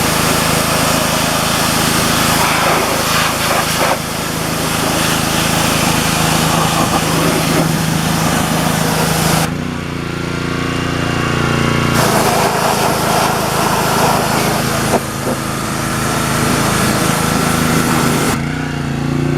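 Pressure washer running: a small engine holds a steady note while the water jet hisses against the mower. The spray cuts off for a couple of seconds about halfway through and again near the end while the engine keeps running.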